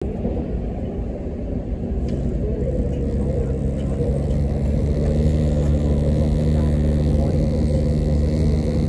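MTR SP1900 electric train car running, heard from inside: a steady rumble with a hum of several pitches, growing louder over the first few seconds. Faint clicks come through it, the abnormal noise from the driver's cab door.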